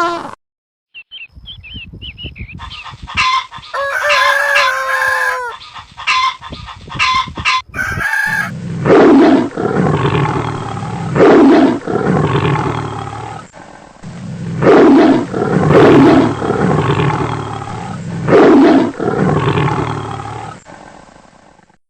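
Chickens: a rooster crowing, then a run of loud calls repeating about every two seconds, in several short clips cut one after another.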